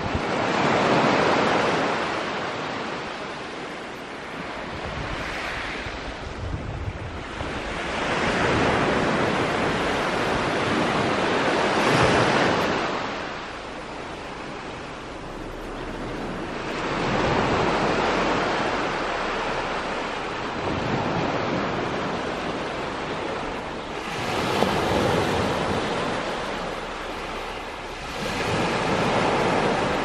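Small sea waves washing up onto a sand beach and drawing back, a hissing wash that swells and fades every several seconds.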